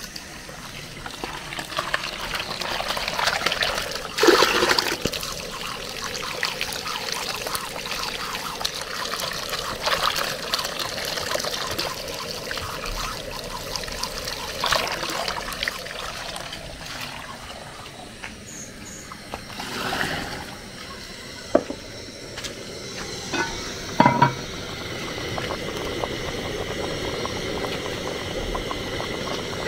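Tap water pouring from an outdoor standpipe into a plastic bowl, splashing as hands rub and rinse food in it. A few sharp knocks come in the second half.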